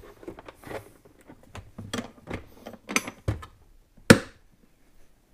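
Plastic ammo-box battery box being handled and its lid closed: a run of plastic knocks and clicks, then one loud snap about four seconds in as the lid is pressed shut.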